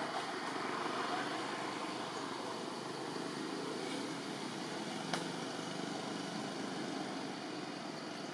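Steady background noise with no distinct event, and a single faint click about five seconds in.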